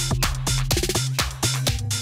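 Electronic dance music with a steady fast beat, about four strikes a second, over a bass line.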